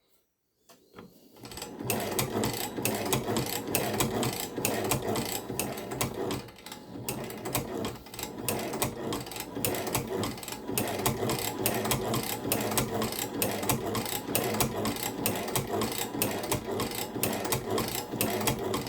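Chinese shoe patcher sewing machine running to wind a bobbin, a steady rhythmic mechanical clatter that starts about a second and a half in.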